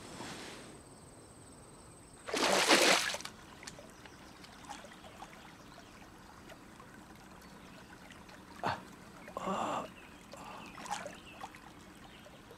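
Faint water trickling, with a loud rush of splashing noise lasting under a second about two seconds in and a few fainter short splashes and a click later.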